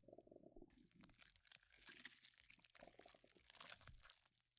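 Very faint stomach gurgling with scattered soft crackles, close to near silence.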